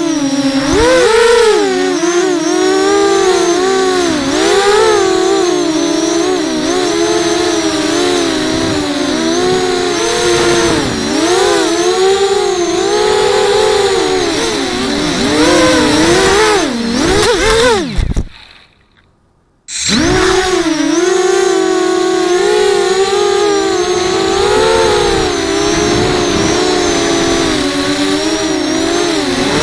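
Racing quadcopter's electric motors and propellers whining, heard from on board, the pitch rising and falling over and over with the throttle. A little over halfway through, the sound cuts out almost to silence for about a second and a half, then the motors spin back up.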